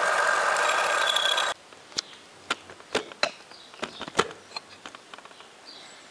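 Lathe tool facing a back plate held in a three-jaw chuck: a loud, steady cutting noise with a few faint ringing tones, which cuts off abruptly about a second and a half in. Scattered sharp clicks and knocks follow.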